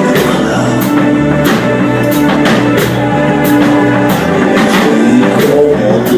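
Band music with guitar and drums, the drums keeping a steady beat of about two hits a second under sustained notes and a bass line; no singing.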